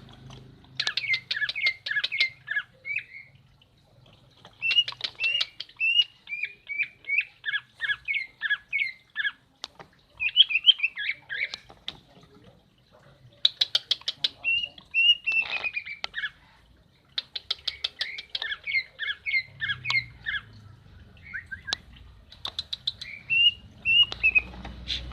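Female green leafbird (cucak ijo) calling in repeated runs of rapid, chattering notes, each run lasting a couple of seconds with short pauses between, about six runs in all.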